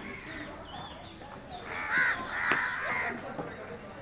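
Crows cawing: a few harsh calls clustered around two to three seconds in.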